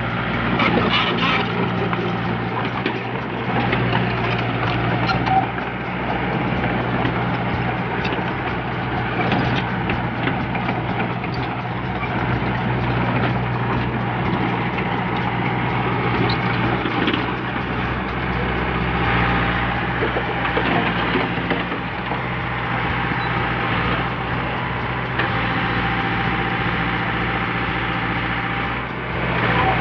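Backhoe's diesel engine running steadily, with scattered knocks and cracks over it.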